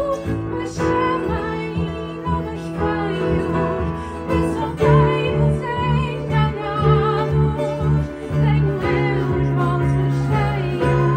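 A woman singing a slow song with wavering held notes, accompanied by double bass, guitar and keyboard played live.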